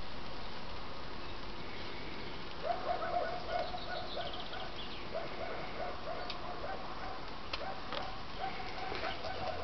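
A bird calling: repeated runs of short, quick, pitched notes that start a little under a third of the way in, over a faint steady hiss, with a few faint clicks.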